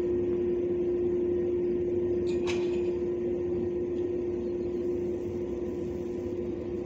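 A steady mechanical hum holding one pitch, with a short sharp high sound about two and a half seconds in.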